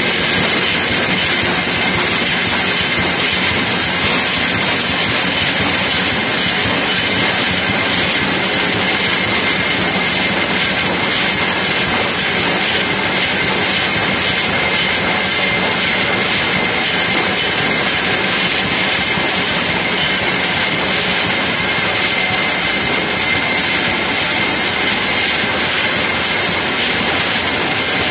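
JAGER GD6 wire-mesh welding line running: a loud, steady industrial drone with a few constant high-pitched whining tones over it.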